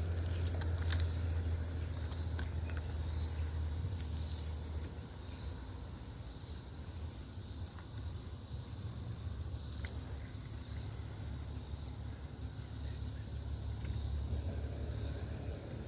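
Steady low rumble and faint hiss of riverside outdoor ambience, with a few light clicks in the first few seconds.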